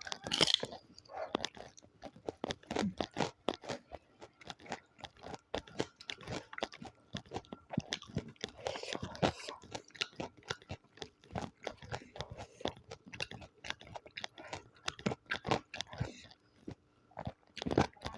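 Close-miked eating: dense, irregular crunching and chewing, with a short lull near the end followed by one loud crunch.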